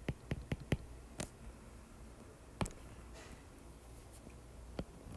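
Stylus tip tapping and clicking on a tablet's glass screen while handwriting letters: a handful of short, sharp ticks, most of them in the first second or so, with a faint brushing sound about three seconds in.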